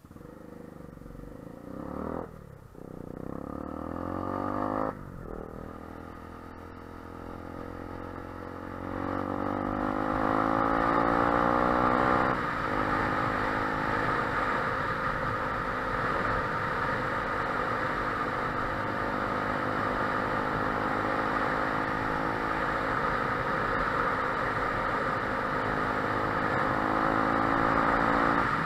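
Yuki SM 125 motorcycle's single-cylinder engine through an aftermarket Motomachos exhaust end can, pulling away and revving up through the gears. The pitch rises, breaks at a gear change and rises again three times in the first twelve seconds, then the engine settles into a steady cruise.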